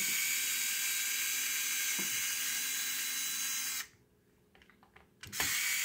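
Skil battery-powered screwdriver running steadily as it drives a screw. It cuts off about four seconds in and starts up again near the end.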